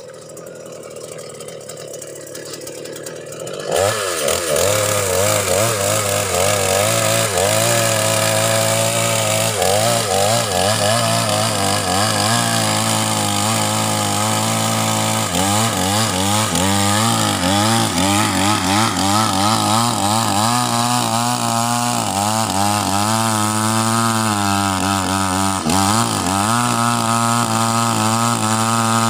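Two-stroke gasoline chainsaw running near the microphone from about four seconds in, holding a low idle-like speed whose pitch wavers unevenly rather than revving up to cut.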